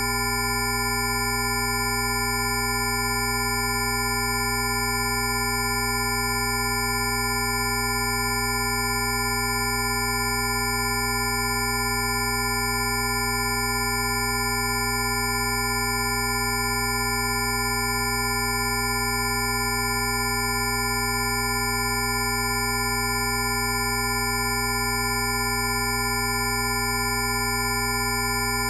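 Rife frequency tones: many pure electronic tones, low and high, sounding together and held perfectly steady.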